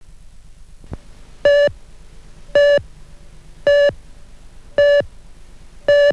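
Countdown leader beeps: five short tones of the same pitch, one a second, over a low steady hum, with a single click about a second in.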